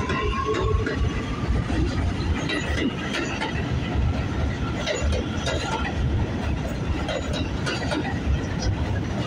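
New York City subway train running past the platform: a steady rumble of wheels on rail, with irregular clicks as the wheels cross rail joints. A high whine fades out just after the start.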